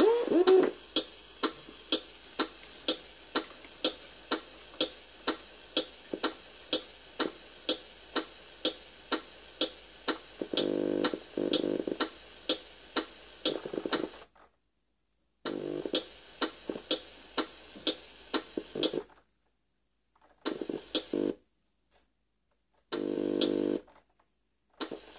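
G.T. Power RC sound module playing its sound effects through a small loudspeaker: a steady ticking about twice a second, joined briefly by a buzzy steady tone. The ticking then gives way to short bursts of the tone that cut in and out with dead silence between them.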